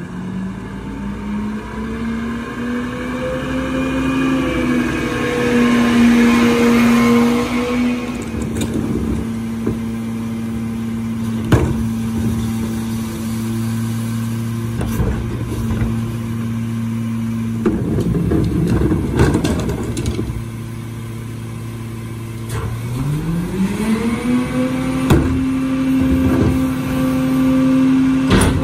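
Mack LR garbage truck's diesel engine speeding up as the truck pulls up, then idling steadily under scattered clanks and a short rattling stretch. About 23 s in the engine speeds up and holds there, the high idle that drives the Leach Alpha III rear loader's hydraulics for the cart tipper.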